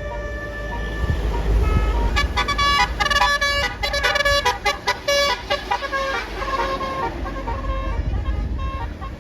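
Bus's Basuri telolet horn, a multi-trumpet musical horn, playing a tune of short, quickly changing notes. The notes are loudest and choppiest from about two to five and a half seconds in, over the low rumble of the bus.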